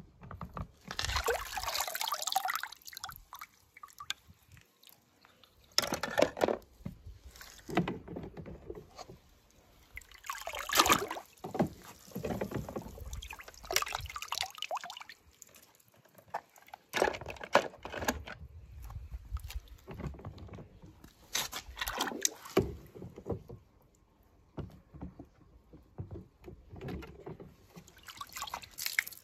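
Water splashing and sloshing in a string of separate bursts a few seconds apart, with quieter gaps between them.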